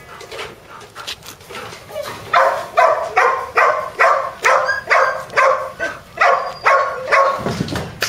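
Border Collie puppy crying in short, regular yelping whines, about two or three a second, starting about two seconds in.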